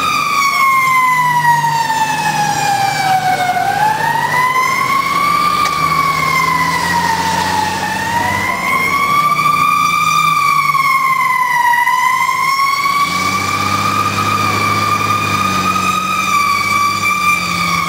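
Fire engine siren wailing, its pitch sliding down and up in slow, uneven sweeps of a few seconds each, heard from on board the responding truck with its engine running underneath.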